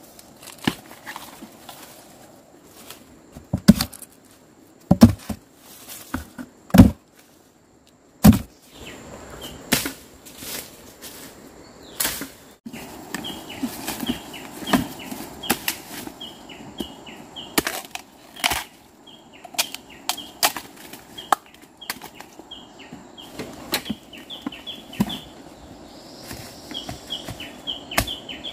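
Sharp chopping strikes, about five loud blows in the first eight seconds, as bamboo shoots are cut out of the ground. Then dry bamboo leaves rustle and crackle as she moves and digs, while a bird chirps in short, quickly repeated notes through the second half.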